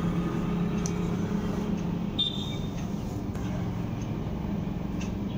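A steady low hum over an even rushing background noise, with a brief high-pitched tone about two seconds in.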